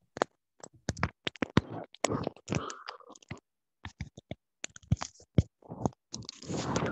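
Computer keyboard keystrokes, a run of irregular sharp clicks as a short phrase is typed. A brief rustling noise comes near the end.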